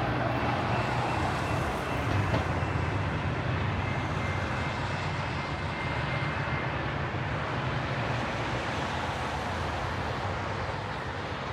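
Metra commuter train running by with a steady low rumble and faint high-pitched wheel tones, slowly fading.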